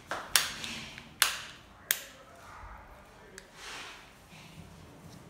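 Sharp plastic clicks and knocks from a stroller bumper bar as its end connector is worked into the stroller's side mount: three loud clicks in the first two seconds, then a softer one.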